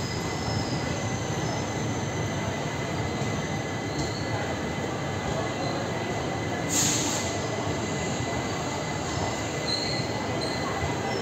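Passenger train rolling slowly out of a station, heard from aboard: a steady rumble of wheels on the track. There is a short hiss about seven seconds in, and faint brief wheel squeals.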